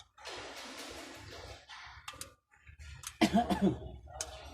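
A person coughing: a rough, raspy cough, then a louder short vocal burst about three seconds in.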